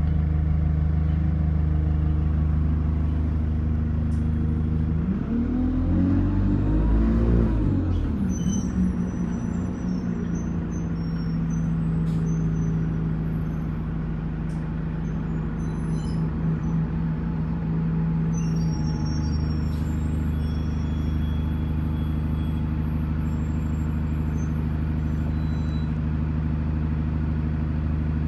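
Single-deck diesel bus engine running as it drives. About five seconds in the engine note rises and falls again, then it runs on steadily, with a change in note near the end of the second third and a few light rattles.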